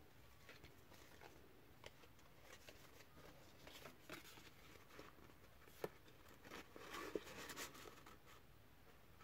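Faint handling of paper tags and ribbon: soft rustles and small clicks, with a sharper tap about six seconds in and a short run of rustling just after.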